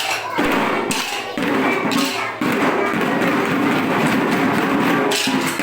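A children's drum band beating drums together, a dense, loud run of many strokes.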